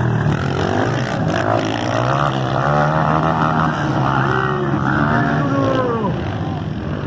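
Motocross motorcycle engines racing, their pitch repeatedly rising and falling as riders accelerate and back off.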